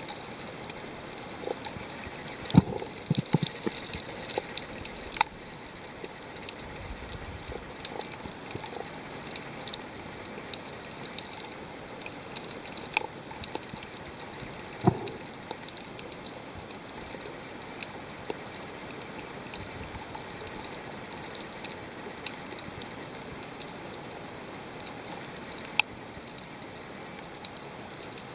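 Underwater reef ambience: a dense, continuous crackle of snapping shrimp heard through an underwater camera. A few dull knocks come in the first few seconds and one about halfway through.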